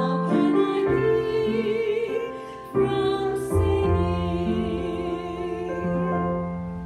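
A hymn sung with keyboard accompaniment: a voice holds notes with vibrato over sustained chords. The music fades toward the end.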